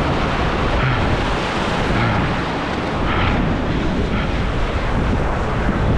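Ocean surf breaking and washing over a rock ledge: a loud, steady wash of white water.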